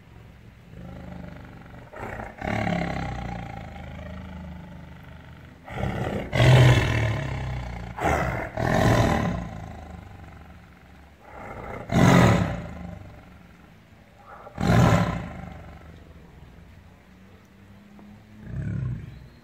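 Tiger giving angry roars and growls in repeated harsh bursts, the loudest about six, twelve and fifteen seconds in, with a longer, lower growl early on and a smaller one near the end.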